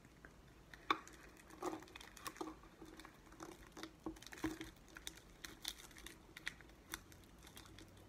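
Clear plastic contact paper crinkling as it is handled and pressed into a metal mason jar lid, with scattered soft clicks and taps.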